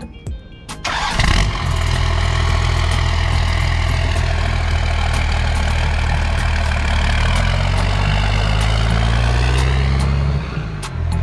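A boat motor catches about a second in and runs steadily, its pitch rising and falling a little as the throttle changes, then eases off near the end.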